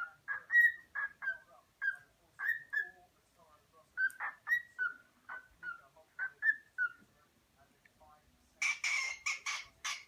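Cockatiel chirping and whistling: a string of short notes, roughly two a second, each gliding in pitch, then from about eight and a half seconds in a faster run of harsher, scratchier chirps.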